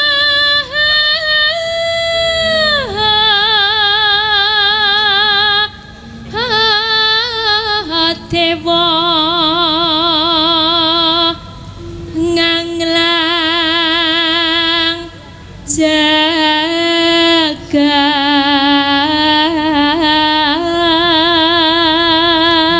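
A Javanese sinden (female gamelan singer) sings a solo vocal line, a bawa, into a microphone. She holds long notes with wide, even vibrato, in phrases broken by short breaths.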